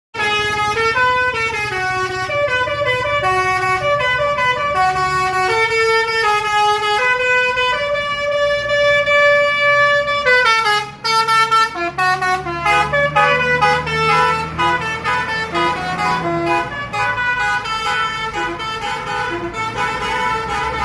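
Indonesian 'telolet' bus horn, a multi-tone musical horn, playing a quick tune of changing notes, with a brief break about eleven seconds in. A steady low hum runs underneath.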